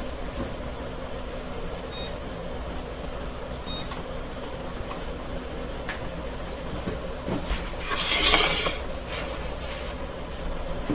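Two short electronic beeps from an oven's control panel, about two and four seconds in, as the oven is set, over a steady kitchen hum. A click follows near the middle, and about eight seconds in comes a louder rush of noise lasting about a second.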